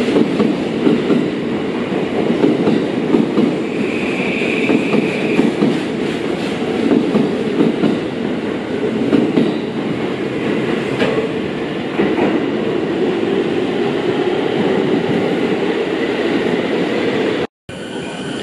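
E235 series commuter train departing, its cars rolling past with a steady rumble and the clatter of wheels over rail joints. The sound cuts out for a moment near the end.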